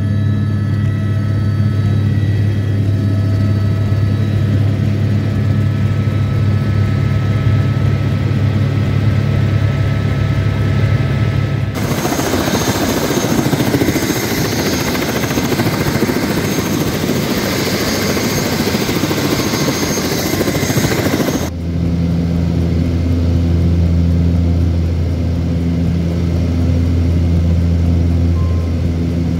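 Helicopter running nearby: a loud, steady, low rotor and engine drone. About twelve seconds in, it cuts abruptly to roughly ten seconds of loud rushing noise, then cuts back to the steady drone with a faint pulsing above it.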